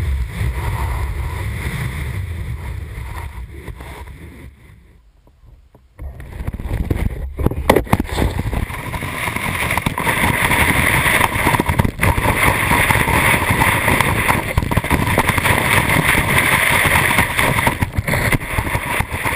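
Steady hiss and scrape of a 210 cm hardboot alpine snowboard's edge carving through snow, mixed with wind rushing over the camera's microphone. It fades almost away about five seconds in, comes back louder with a few sharp knocks, then stays steady.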